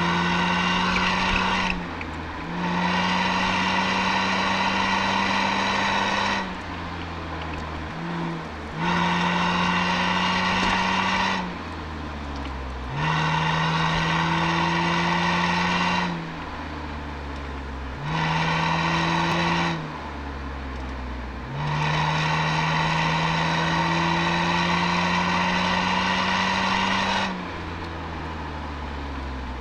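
Toyota Altezza's 1G-FE straight-six running through an Apexi aftermarket exhaust, heard close at the tailpipe. About six pulls under throttle, each a few seconds long with the pitch slowly climbing, each followed by a quieter stretch where the revs fall as the throttle is lifted.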